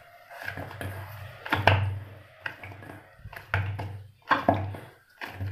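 Hands kneading a stiff wheat-flour and jaggery dough in a stainless steel bowl: irregular soft knocks and squishes as the dough is pressed and pushed against the bowl.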